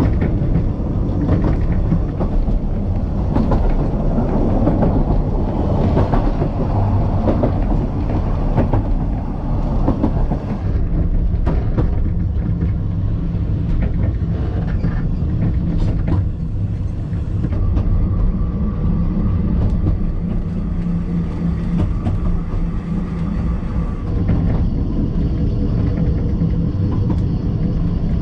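Narrow-gauge heritage railway train running along the track, heard from the rear carriage: a steady rumble of wheels on rails with scattered sharp clicks of wheels over rail joints.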